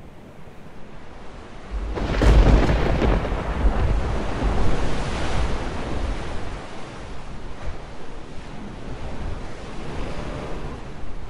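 Thunderstorm sound effect: rain and wind rising, then a thunderclap about two seconds in, followed by a long rolling rumble that slowly fades.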